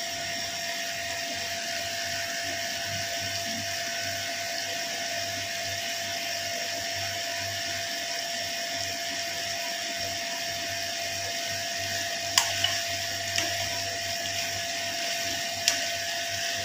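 Chicken and bell peppers simmering in sauce in a frying pan: a steady bubbling hiss with a constant hum underneath. A few sharp knocks about twelve seconds in and again near the end, as a wooden spatula strikes the pan.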